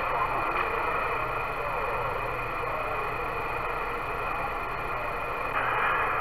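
CB radio receiver hissing with static between transmissions, a weak, garbled distant station faintly wavering under the noise. About five and a half seconds in the hiss grows louder as a strong station keys up.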